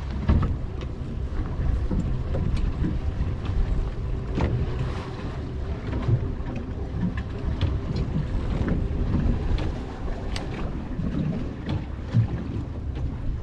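Steady low rumble of wind and water around a small boat at sea, with scattered small knocks and ticks through it.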